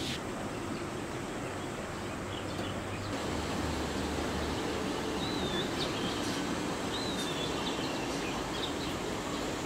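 Outdoor rural ambience: a steady, even hiss of background noise, with a few short bird chirps about five and seven seconds in.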